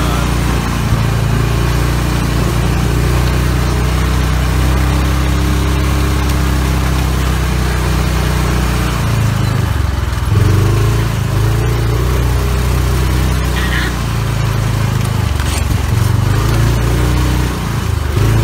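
Small engine of an open vehicle running steadily, its low note changing pitch about ten seconds in and again near the end as it speeds up and slows.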